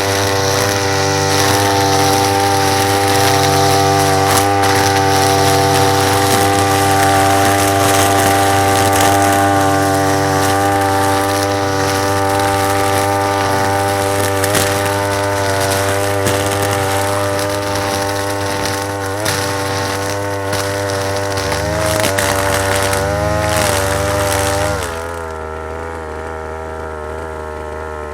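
Small brush cutter engine running steadily at high revs. Near the end its speed wavers, then it drops to a lower, quieter speed.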